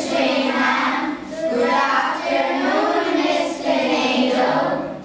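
A group of children singing together in unison, in sustained sung phrases that die away just before the end.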